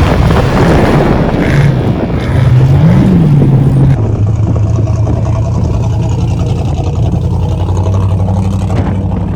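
Off-road race truck engine running, its pitch rising and falling with throttle for the first few seconds. About four seconds in the sound changes abruptly to a steadier engine drone.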